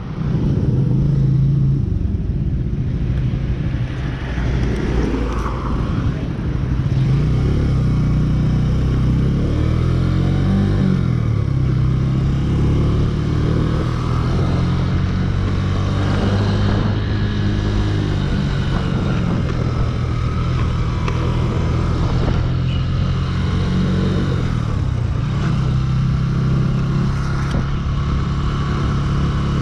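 A small motorcycle's engine running while riding, its note rising and falling several times as the rider accelerates and eases off.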